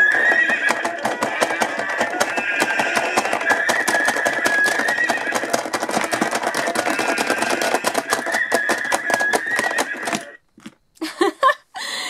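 Tinny electronic music playing from a toy playset's small speaker, with a high wavering melody over a fast clicking beat, cutting off suddenly about ten seconds in.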